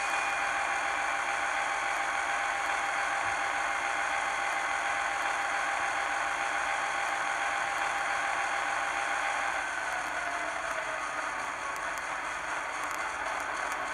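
HO-scale JŽ 666 diesel locomotive model's ESU sound decoder playing a diesel engine sound through its small speaker: a steady whirring hum with several held whistling tones. About ten seconds in, one tone slides down in pitch and the sound gets a little quieter. The model's wheels clatter lightly on the track underneath.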